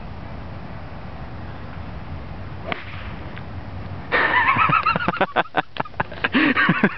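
A driver strikes a trick exploding golf ball off the tee with a single sharp crack as the ball bursts into powder. About a second later, loud laughter breaks out in rapid bursts.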